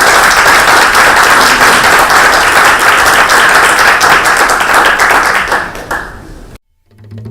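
Audience applauding loudly, fading away near the end, followed by a sudden cut and the start of music.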